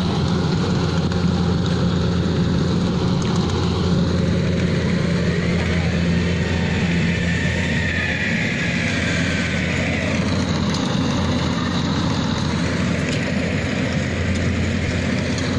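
Rice combine harvester running steadily, a loud engine drone with mechanical noise over it.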